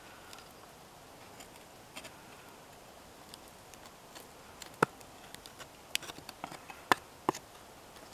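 A knife splitting thin sticks off a slab of wood, making a few separate sharp cracks about a second apart in the second half, the sharpest near the middle.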